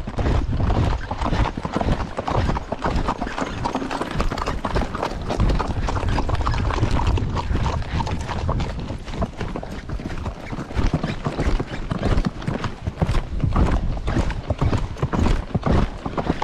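Horse loping on a dirt road: a continuous, rapid run of hoofbeats.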